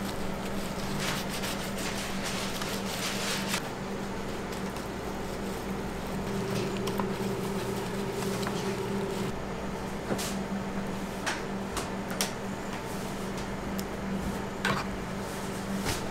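Steady hum of kitchen machinery, with a few short clicks and knocks from beef ribs being handled and seasoned on a metal tray.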